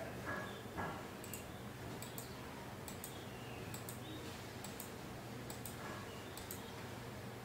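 Computer mouse button clicked over and over, about once every second, each click a sharp double tick, over a low steady hum.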